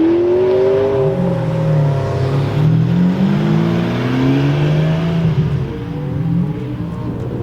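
Supercar engine accelerating, its pitch climbing, dropping back and climbing again, then holding steady and falling away near the end.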